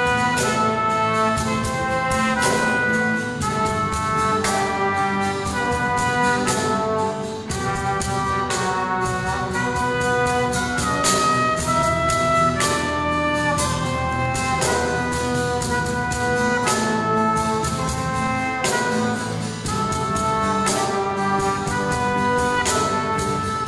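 A small live band playing a song: a cajón keeping a steady beat under held, stepping melody notes.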